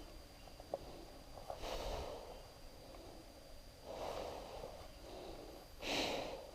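A person's breathing close to the microphone: three soft breaths a couple of seconds apart, the last one, near the end, the loudest.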